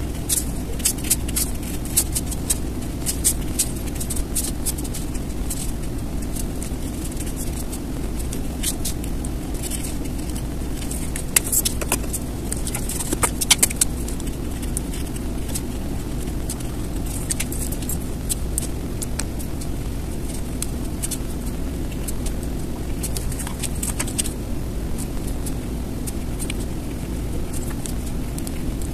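Steady low background rumble with scattered small clicks and taps from handling a marker and paper, bunched about one to four seconds in and again from about eleven to fourteen seconds in.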